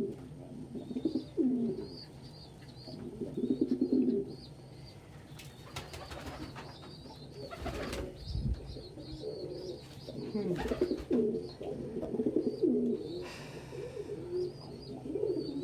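Domestic pigeons cooing in bouts every few seconds, low and throbbing, with faint high chirps from other birds throughout. A short rustle and a low thump come about halfway through.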